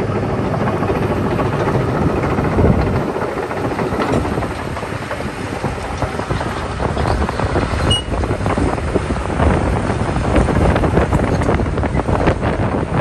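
Komatsu PC210 crawler excavator's diesel engine running steadily under load as the machine travels and slews, its steel tracks clattering with many short sharp knocks through the second half.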